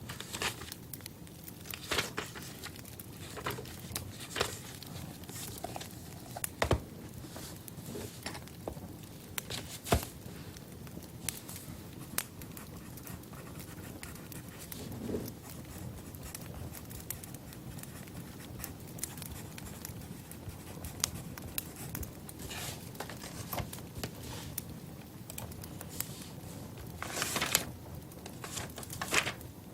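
Sparse, irregular clicks and crackles over a low steady background, with a longer rustling burst near the end.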